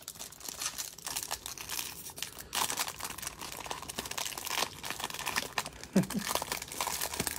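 Clear plastic wrapper crinkling and tearing as it is peeled off a pack of trading cards by hand, with a run of irregular crackles.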